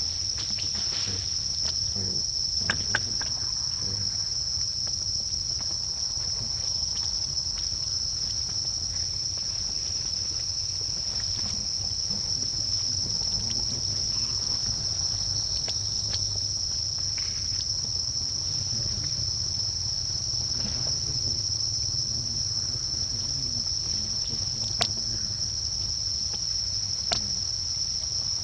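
A steady, unbroken high-pitched drone of insects, with a few brief clicks about three seconds in and near the end.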